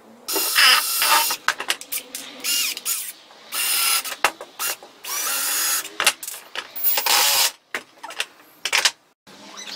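Cordless drill-driver run in about six short bursts, its motor pitch rising and falling as it speeds up and slows, with clicks and knocks of metal parts being handled between bursts.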